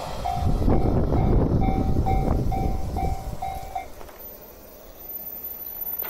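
A Japanese level-crossing alarm beeps about twice a second and stops about four seconds in. Under it, the rumble and wheel clicks of a passing electric train fade away.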